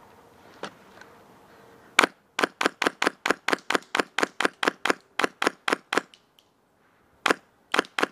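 Airsoft gun firing a fast string of single shots, sharp cracks at about five a second for some four seconds, then a short pause, one more shot and a few more near the end.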